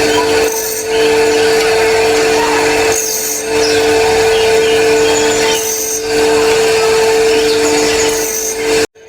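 Motorcycle camshaft copy-grinding machine running, a steady motor hum under a continuous rasping as it works a cam, the noise easing briefly about every two and a half seconds. The sound cuts off abruptly near the end.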